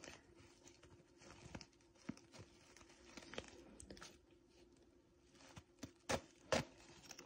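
Faint rustling and small clicks as a small zipped pouch of sewing notions is opened and handled, with two sharper clicks near the end.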